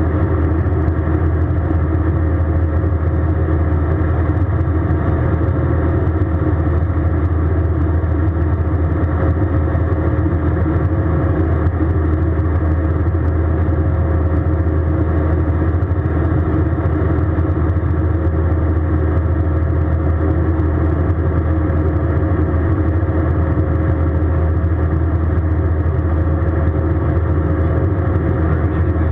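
Steady drone of an Airbus A320 in flight, heard inside the passenger cabin: jet engine and airflow noise with a deep hum and a thin steady tone, unchanging throughout.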